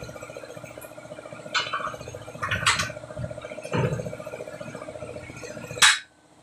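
Steel tyre bar knocking against the steel rim of a truck tyre as the tyre is levered off by hand: a few lighter clanks, then one loud ringing metal strike near the end.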